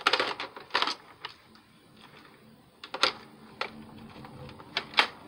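Plastic clicks and rattles from the magazine and mag release of a Nerf Rival Hypnos blaster being handled: a quick flurry of clicks in the first second, then a few single clicks about three and five seconds in.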